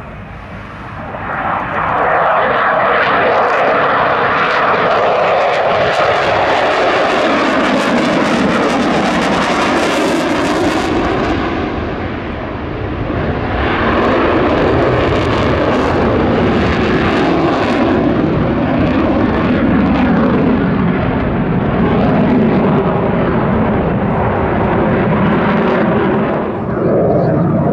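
Dassault Rafale C fighter's twin M88 turbofan jet engines at display power: loud jet noise that swells about two seconds in and slides down in pitch as the jet passes. It dips briefly near the middle, swells again and falls in pitch once more.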